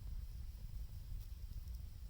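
Wood fire burning with a few faint crackles, under a steady low rumble of blizzard wind on the microphone.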